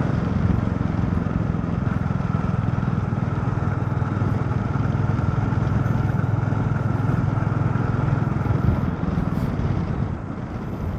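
Motorcycle engine running steadily at road speed while riding, with road noise; it quietens slightly near the end.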